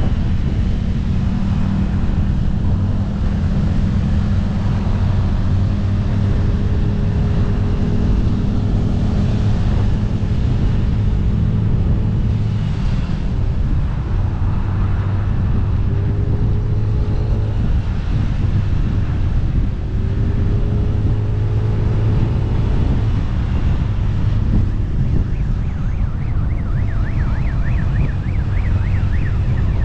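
Motorcycle engine running steadily at road speed, with wind rushing over the microphone. A faint wavering high tone comes in near the end.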